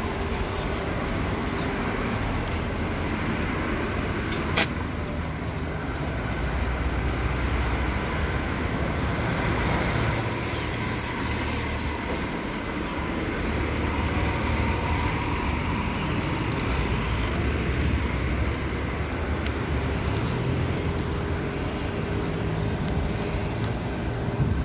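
Steady road traffic noise, cars and buses going by, with a low rumble throughout and one sharp click about four and a half seconds in.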